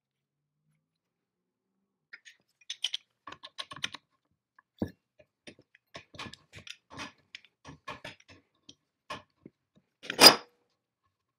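Small metal clicks and scrapes of pliers and loose parts being handled on a rusty cast-iron saw arbor housing, coming in irregular bursts, then a single loud, sharp knock about ten seconds in.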